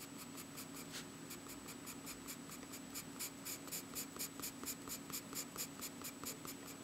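Faint, rapid hatching strokes of a drawing tip scratching on sketchbook paper, about six strokes a second, as a dark area is shaded in.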